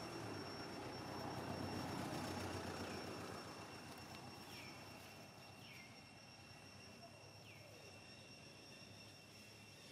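Faint distant engine noise swells for the first couple of seconds, then fades away. Under it runs a thin, steady high whine, and three short falling chirps come in the second half.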